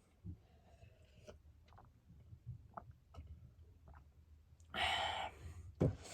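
Quiet eating sounds: faint chewing with small wet clicks of the mouth, and a short rush of noise about five seconds in, followed by a sharp click near the end.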